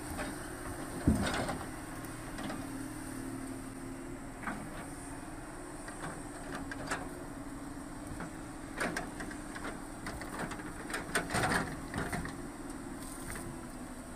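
Heavy machinery engine running steadily while an excavator's grapple handles logs onto a logging truck, with wooden knocks and thumps as the logs are moved and settle: a loud knock about a second in, scattered knocks after, and a cluster of them about three-quarters of the way through.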